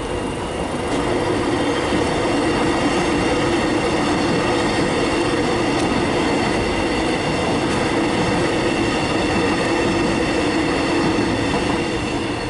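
Suburban electric train running through a level crossing: a loud, steady rumble of wheels on rail with constant humming tones that holds at an even level and eases only near the end.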